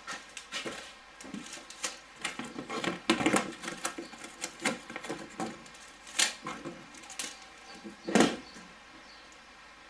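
Metal exhaust nuts and bolts clicking and clinking against each other as they are dropped into and shaken in a small zip-lock plastic bag: a run of irregular small clicks, the loudest about three, six and eight seconds in.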